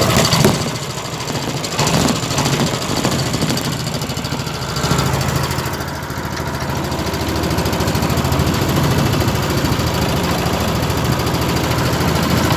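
Boat engine running steadily underway, a low even hum, with a few knocks in the first five seconds.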